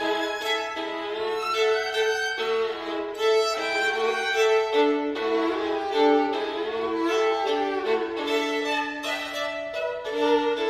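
Two violins playing a duet, their bowed lines weaving together with some notes held and others sliding in pitch.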